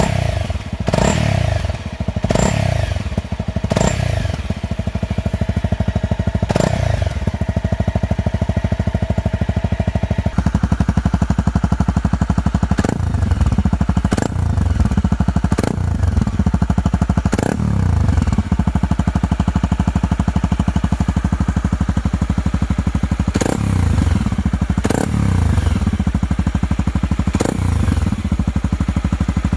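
Honda CRF250M's single-cylinder four-stroke engine idling, with a dozen or so quick throttle blips that each rev up sharply and fall straight back to idle. There is a pause of several seconds with only idle in the middle.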